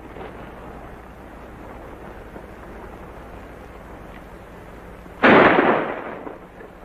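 A single revolver shot fired into the air, about five seconds in, with a short fading echo. Before it there is only the faint hiss of an old film soundtrack.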